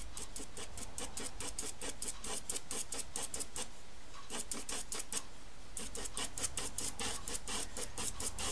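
Pastel pencil scratching on textured pastel paper in quick short strokes, several a second, with a brief pause a little past the middle.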